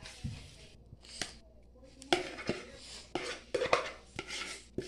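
A spoon scraping and knocking against a bowl and a metal saucepan as whipped cream is scooped out. There are several short clicks and scrapes at uneven intervals.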